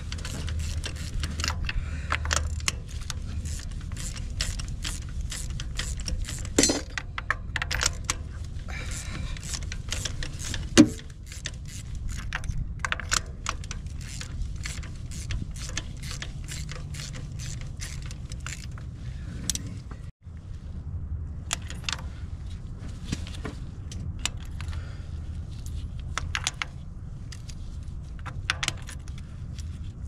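Hand ratchet clicking in quick runs, with clinks of metal tools, as the spark plugs are worked out of the coil-pack wells with a ratchet and extension. A steady low rumble runs underneath.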